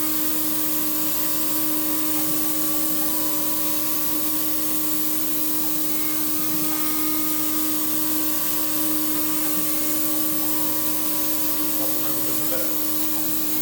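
Desktop mini CNC milling machine running, its spindle giving a steady whine over a constant hiss that does not change.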